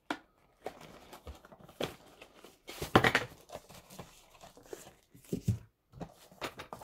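A small cardboard box being handled: its lid slid open, the contents lifted out and the box set down on a wooden table. It makes scattered rustles, scrapes and light knocks, loudest about three seconds in, with a few knocks near the end.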